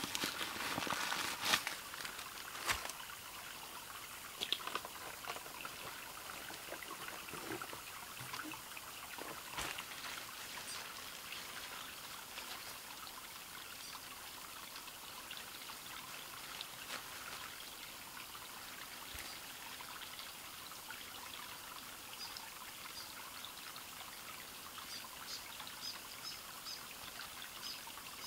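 Steady trickle of a small bush stream, with rustling and knocks from a backpack being handled in the first few seconds and a few faint high chirps near the end.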